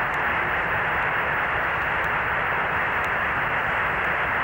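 Steady radio static hiss on the Apollo 11 air-to-ground voice link, with no voice getting through. It marks a communications dropout during the lunar module's descent engine burn, which the commentators suspect may be interference from the engine plume.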